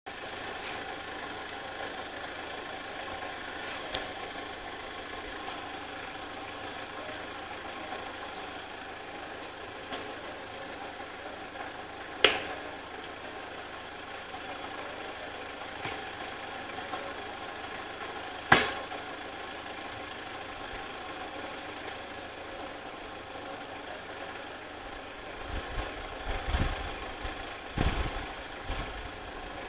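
Rebuilt Toyota Hilux 2.8 turbo diesel engine running steadily at idle. A few sharp clicks stand out, two of them loud, and there are some low thumps near the end.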